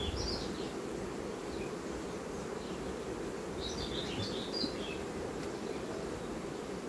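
Honeybees from an open hive buzzing in a steady, even hum. Short high chirps come in twice, at the start and about four seconds in.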